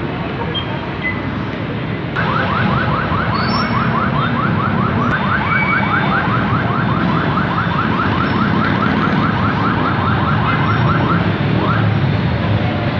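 Electronic car alarm chirping in rapid rising sweeps, about five a second, over steady street noise. It starts abruptly about two seconds in and stops about two seconds before the end.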